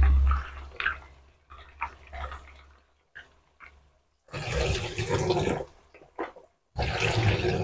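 Tap water splashing into a plastic bowl as cut chayote is rinsed at a sink, in two rushes of about a second each in the second half, with small knocks and clinks of the bowl and pieces in between. A low rumble fades out in the first second.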